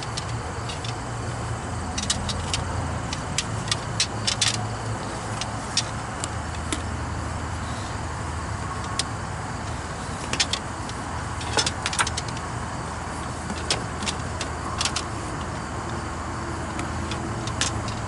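Scattered sharp metallic clicks and taps of a coil of soft copper refrigeration tubing being unrolled and handled, over a steady low background rumble.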